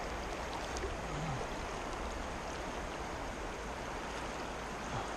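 Fast-flowing river rushing steadily, an even wash of water noise.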